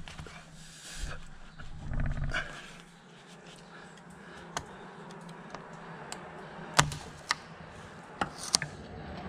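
A pick tool prying a rubber hose loose from its metal neck: scraping and rubbing for the first couple of seconds, then about five sharp clicks, the loudest about seven seconds in.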